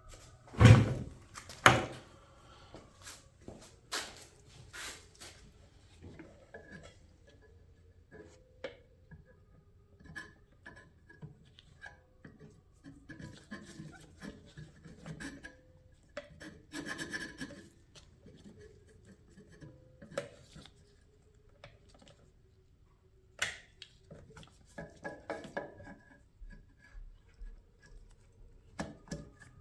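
Small parts and tools being handled on a workbench: scattered clicks, knocks and rubbing, with two louder knocks about a second in.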